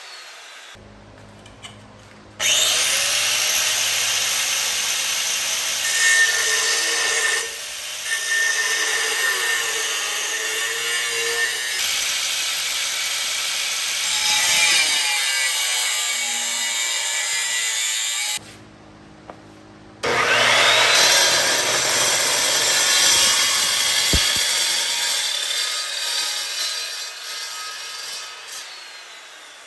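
Power saw cutting through the Suzuki Samurai's sheet-metal body to remove a box section, in two long cuts with a short pause between; the second cut tapers off near the end.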